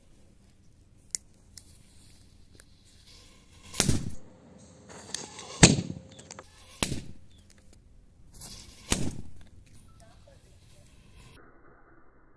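Firecrackers going off inside a homemade steel-pipe cannon, firing it: four sharp bangs at uneven gaps over about five seconds, the third one weaker, after a faint click about a second in.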